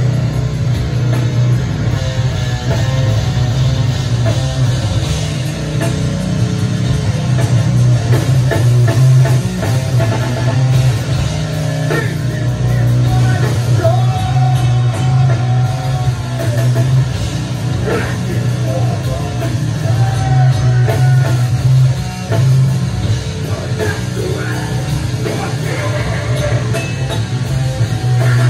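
Rock band playing live and loud: electric guitar, bass guitar and drum kit, with a heavy low end throughout.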